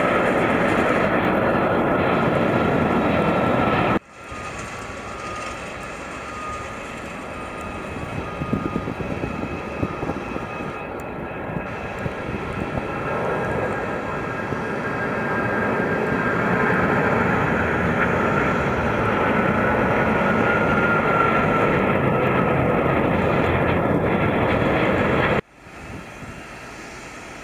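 Jet engines of departing airliners at takeoff thrust: a four-engined Boeing 747 passes close and loud. After a sudden cut about four seconds in, a twin-engined Boeing 777 climbing out with its gear down starts quieter and grows steadily louder. Near the end another cut drops to a fainter, more distant jet on its takeoff roll.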